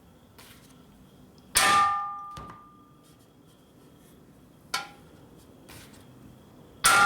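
Hammer blows on a steel motorcycle gas tank: two hard, ringing metallic clangs about five seconds apart with a lighter knock between. The tank is being dimpled so it clears the frame.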